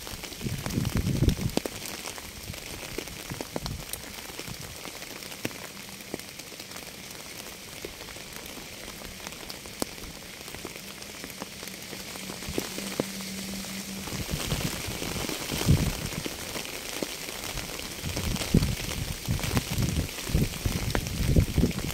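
Rain falling steadily on a surface, with many individual drops ticking close by. Deep rumbling swells come and go near the start and again in the second half.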